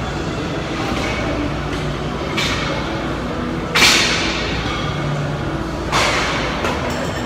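Weight-room ambience: a steady background hum of the gym broken by sharp metal clanks of weights, about two and a half, four and six seconds in, the one at four seconds the loudest.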